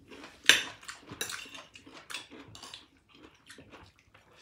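Utensils clinking and clattering against dishes in a series of short, irregular knocks, the sharpest about half a second in.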